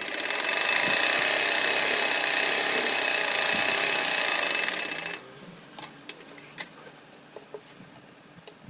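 Sewing machine running steadily while stitching a seam along a blouse sleeve, then stopping abruptly about five seconds in. A few light clicks follow.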